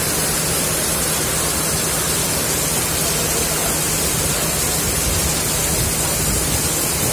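Heavy rain pouring down in a steady, dense hiss, with a low steady hum beneath it.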